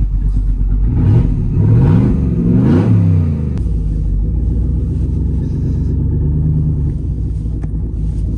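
Swapped 6.2L V8 in a 2024 GMC Sierra, running with the muffler cut off but stock manifolds and cats, heard from inside the cab. It is revved three times in quick succession in the first few seconds, then settles back to steady running.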